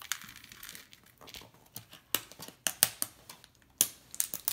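Plastic toy packaging crinkling and rustling as it is handled, with irregular sharp clicks and taps from small plastic pieces.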